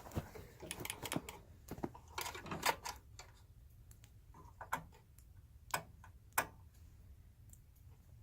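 Faint, irregular clicks and light knocks of hands handling parts and tools, with a few sharper taps about a third of the way in and again past the middle.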